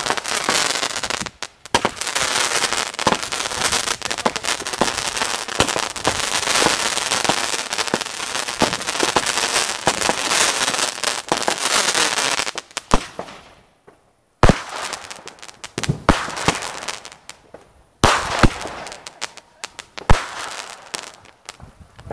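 Fireworks going off: a dense run of rapid crackling bangs for about twelve seconds that does not let up, then about five separate sharp bangs a second and a half to two seconds apart.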